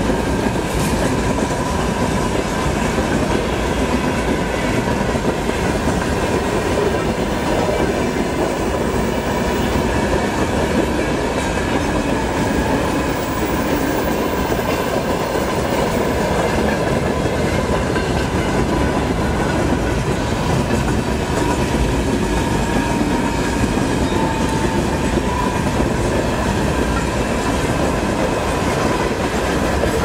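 A long train's wagons rolling past without a break, the wheels clattering over the rails, with a thin steady high whine running through it.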